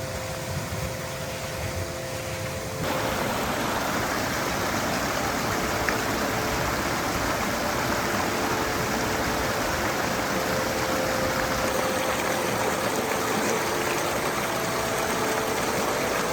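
Steady rush of a mountain stream's flowing water, getting louder about three seconds in.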